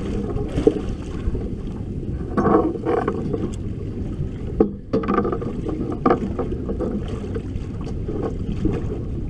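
Steady low rumble of wind and water against a drifting boat's hull, with a few sharp knocks on deck about a second in and again in the middle.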